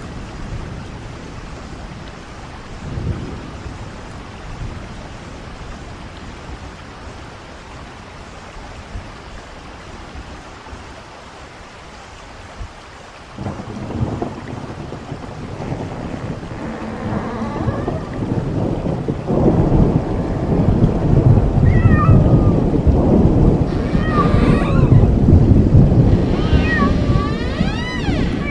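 Low thunder rumbling over a steady rain-like hiss. About halfway a louder rumbling starts, and in the last third cats meow and yowl repeatedly over it.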